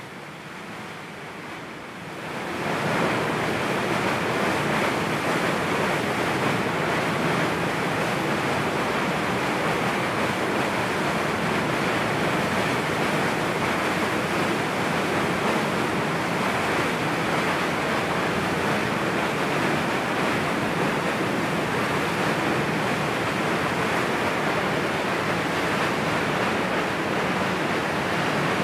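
Water rushing steadily out of an open dam spillway gate and churning in the outlet channel below. It rises sharply in level about two and a half seconds in.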